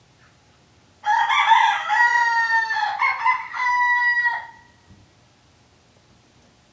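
Rooster crowing once: a single cock-a-doodle-doo of about three and a half seconds, starting harsh and broken, then ending on a long held note that trails off.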